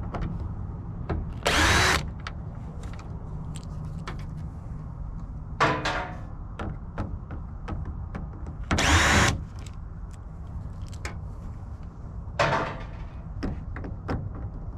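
Cordless power screwdriver backing out screws in four short bursts of about half a second each, spread a few seconds apart, over a steady low rumble.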